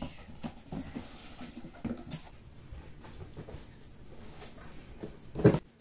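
A cardboard shipping box being opened and handled: scattered rustles and light knocks from the flaps and the box inside, with one loud thump near the end.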